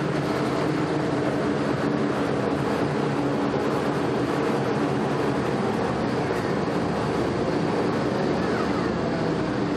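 Army Duck (DUKW amphibious truck) engine running steadily under way, heard from aboard the vehicle.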